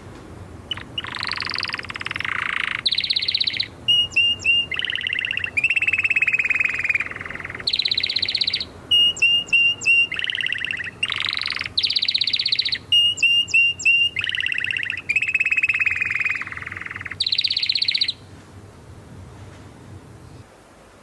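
Domestic canary singing a long song of rapid rolling trills that switch pitch from phrase to phrase, with short sharp chip notes between the rolls. The song stops about 18 seconds in.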